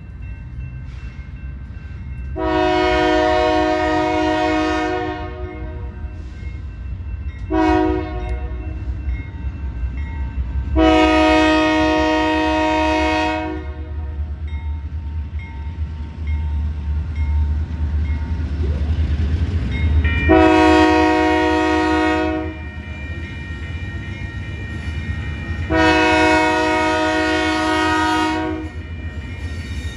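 Freight locomotive air horn sounding a series of blasts, four long and one short, over the steady low rumble of the train's diesel engine.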